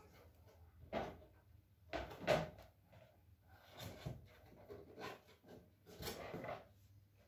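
Hands working an inflated rubber balloon, tying its neck off with thread: a handful of short rubbing and rustling handling sounds, the loudest about two seconds in.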